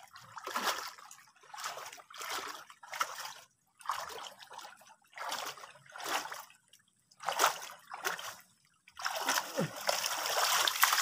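Hands splashing and sloshing in shallow muddy ditch water while groping for catfish, in separate splashes about once a second, turning into louder, continuous splashing about nine seconds in.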